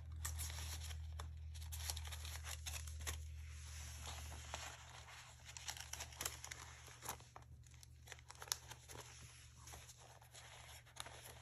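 Paper pages and cards in a handmade junk journal being handled: soft, irregular rustling, sliding and light taps as cards are tucked into a pocket and pages are lifted and turned.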